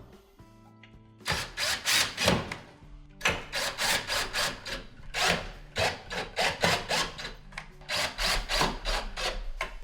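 Screws being driven into the microwave's sheet-metal side panel with a screwdriver: a quick run of short noisy strokes, starting about a second in.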